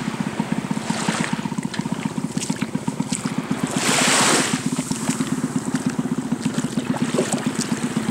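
A boat's engine chugging steadily offshore, a fast even low beat. About four seconds in, a wash of water swells up and fades over it.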